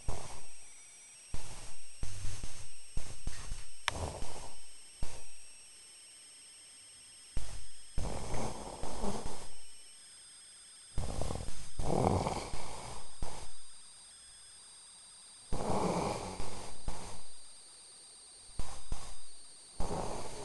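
A man snoring in his sleep: loud, choppy snores in a regular rhythm, about one every four seconds, with quieter pauses between breaths.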